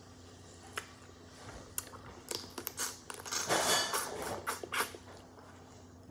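Close-up eating of seafood-boil blue crab by hand: scattered small clicks and cracks of shell being picked apart, then a louder wet sucking and slurping from about three and a half to five seconds in as fingers and crab meat go to the mouth.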